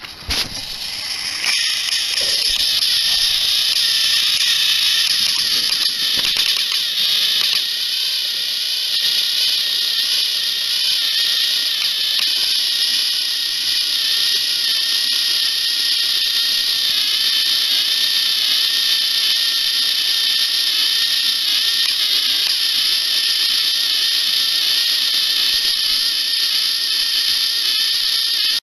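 Two battery-powered toy train engines' small electric motors and plastic gearboxes whirring steadily as they push against each other buffer to buffer on plastic track. The whir starts about a second in and holds an even, high-pitched drone with a slight waver.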